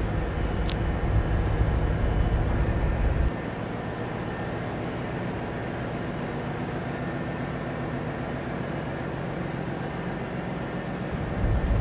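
Steady hum of ship's engine-room machinery running, made up of many steady tones. The deep low rumble drops away about three seconds in.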